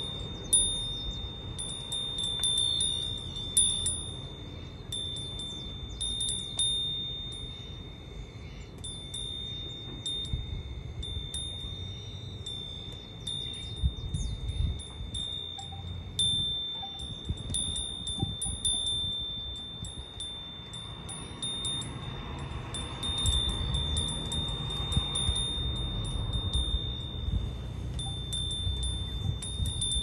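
A wind chime tinkling in the breeze: many quick, irregular strikes over a ringing tone that carries on throughout.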